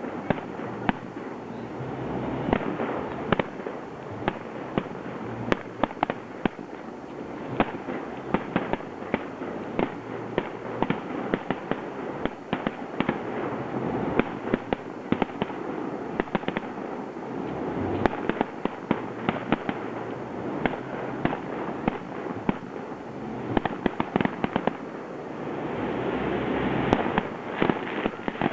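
Aerial fireworks display: shells bursting in dense volleys, with sharp bangs coming several times a second over a continuous din of overlapping bursts.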